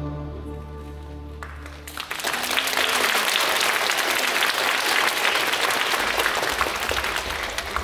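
Music for a classical dance medley fades out on held notes over the first two seconds, then an audience breaks into applause that stays dense and loud, thinning slightly near the end.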